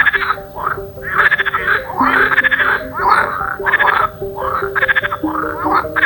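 A chorus of frogs croaking: repeated pulsed, rattling calls from several frogs that overlap one another, over a slow piano melody.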